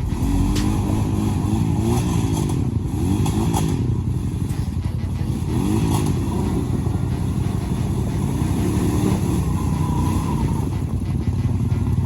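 Off-road vehicle engine running under way, its pitch rising and falling several times as the throttle comes on and off.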